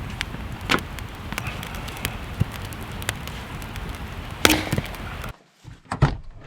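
Firewood being chopped: a few sharp, irregular wooden knocks, the strongest about four and a half seconds in, over a steady background hiss. About five seconds in the background drops away abruptly and two more knocks follow.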